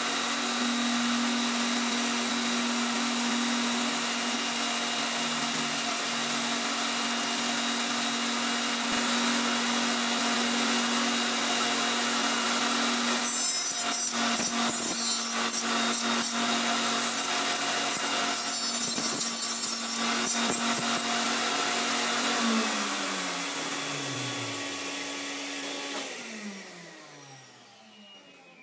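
Tool post grinder spinning its small grinding wheel with a steady whine. Twice around the middle, a stick of wood is run across the wheel with a coarse rasp, to flick out loose grit left in the wheel after dressing. Near the end the grinder winds down, its pitch falling as it slows.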